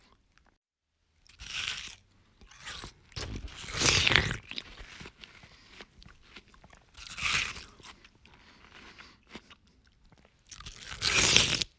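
A dog chewing and crunching its food in several separate bouts, the loudest about four seconds in.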